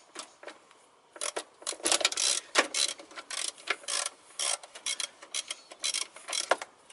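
Ratchet wrench clicking in short, irregular bursts as a throttle body mounting bolt is worked loose. The clicks are sparse at first and come thick from about a second in.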